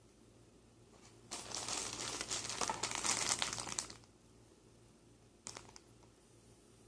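Packaging crinkling as it is handled and pulled open for about two and a half seconds, then a brief rustle near the end.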